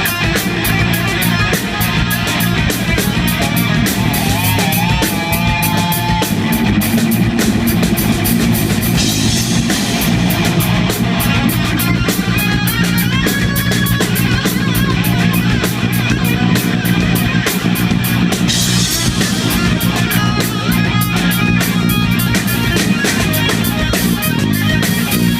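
Hard rock band playing live: electric guitar lines over steady bass and drums, loud throughout.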